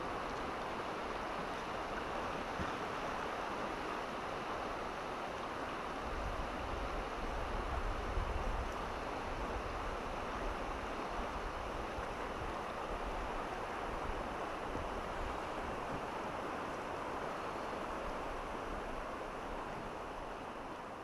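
Steady rushing of a river's current flowing over a shallow, rippling stretch. A low wind rumble on the microphone joins in for a few seconds from about six seconds in, and the sound fades out near the end.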